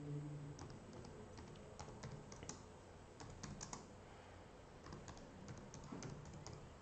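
Faint typing on a computer keyboard: irregular keystrokes coming in short clusters with pauses between.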